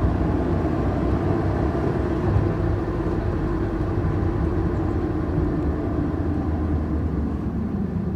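Car driving at a steady speed: a continuous low engine drone mixed with road noise, with no clear rise or fall in pitch.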